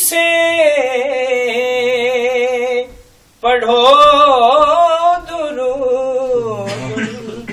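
A man's solo unaccompanied voice reciting an Urdu naat in two long melodic phrases, the pitch wavering and gliding, with a short pause for breath about three seconds in.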